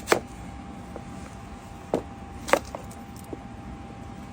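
Kitchen knife cutting sweet potato and potato on a cutting board: a few sharp chops at uneven intervals, three of them loud.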